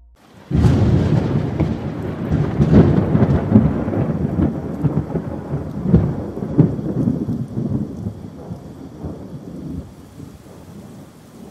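Thunder cracks suddenly about half a second in and rolls on over steady rain. The rumble fades after several seconds, leaving the rain near the end.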